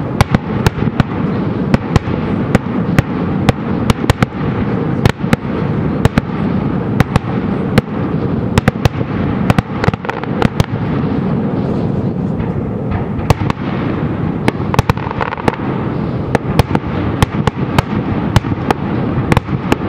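Fireworks display going off in quick succession: several sharp bangs and pops a second over a continuous low rumble.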